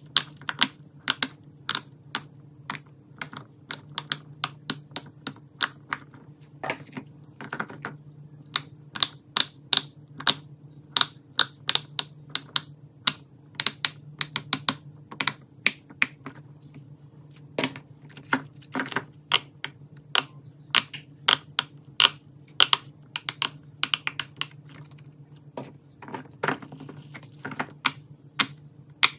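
Silicone pop-it fidget toy bubbles being pressed, giving a long irregular run of sharp clicking pops, about three a second, over a steady low hum.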